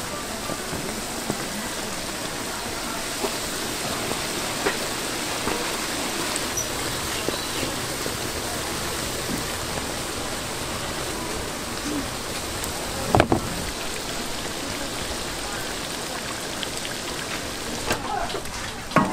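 Dough sizzling steadily in a deep-fryer of hot oil, with scattered small clicks and a brief clatter about thirteen seconds in.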